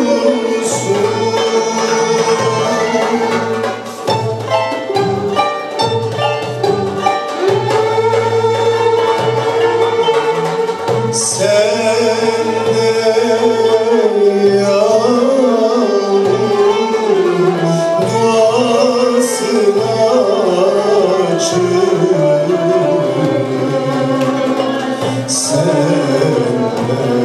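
A male solo voice singing a Turkish classical (art music) song, with a Turkish classical ensemble accompanying, violins among the instruments.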